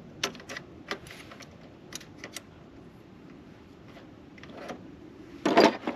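Sharp clicks and clacks of a metal flaring tool's parts being handled and set into its plastic kit case, scattered through the first half, with a louder clatter of several clicks near the end.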